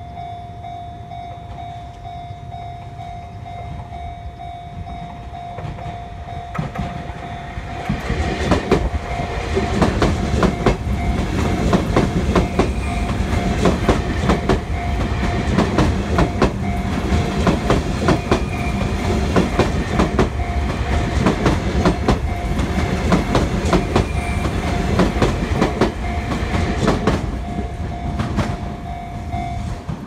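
Japanese level-crossing warning bell ringing steadily while a Sotetsu electric commuter train passes close over the crossing. The train's wheels clack over the rail joints and rumble from about eight seconds in until near the end, then the bell is heard alone again.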